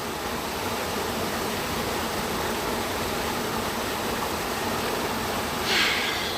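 Waterfall rushing steadily, an even wash of falling water. A brief louder hiss comes near the end.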